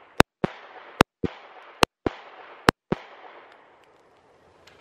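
Four shots from a Glock 19X 9 mm pistol firing 115-grain ball ammunition, spaced a little under a second apart. Each shot is followed about a quarter second later by a fainter second crack.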